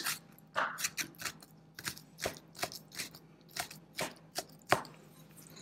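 A 6-inch kitchen knife chopping soft canned chipotle peppers on a wooden cutting board: a quick, uneven series of blade taps on the board, about two or three a second, stopping shortly before the end.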